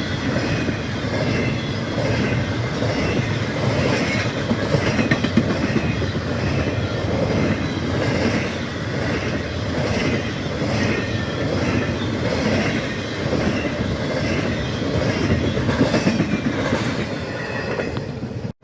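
Freight train cars rolling past: a steady, rhythmic clatter of wheels over rail joints with some high wheel squeal. It cuts off abruptly at the end.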